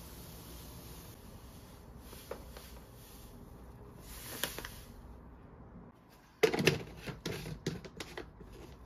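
Granulated sugar pouring in a soft hissing stream over green plums in a large jar, then a sharp knock and a run of clicks and knocks as the jar's plastic lid is put on and screwed down.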